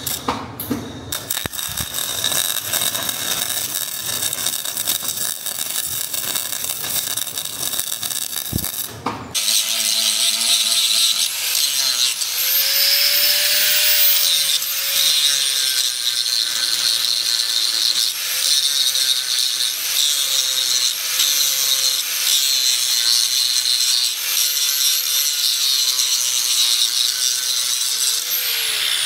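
A crackling, hissing stretch of metalwork. After a brief break about nine seconds in, an angle grinder works on the steel of a leaf spring, its whine dipping and recovering again and again as it is pressed into the metal.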